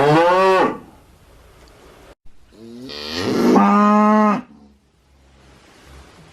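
Cow mooing twice. The first moo ends well under a second in; the second is a long moo from about two and a half seconds in that rises in pitch, then holds steady for about a second before cutting off.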